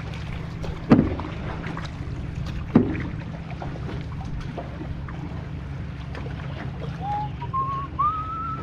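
Canoe paddling: the wooden paddle knocks against the canoe twice, about one and three seconds in, over a steady low rumble. Near the end a person whistles a few notes that step upward in pitch.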